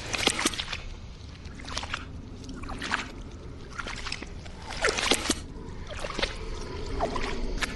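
Created sound effect of a gelatinous cube: irregular wet squelches and sloshes, some close together and some a second or more apart, over a low steady rumble.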